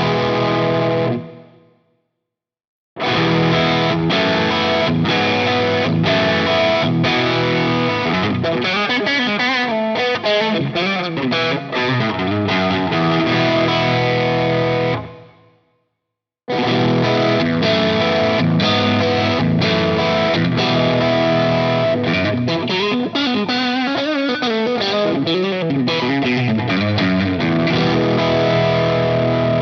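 Soloking MS-11 Classic electric guitar with HSS alnico pickups, played through distortion: ringing chords and riffs with wavering pitch in places. The playing falls silent twice, briefly, about two seconds in and again around the middle.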